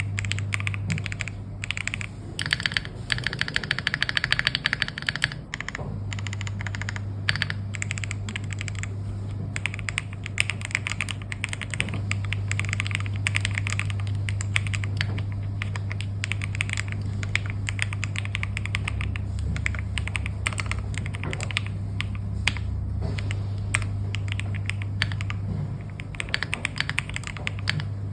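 Typing on a mechanical keyboard fitted with Gateron Pro Silver linear switches: a dense, irregular run of fast key clacks, with a steady low hum underneath.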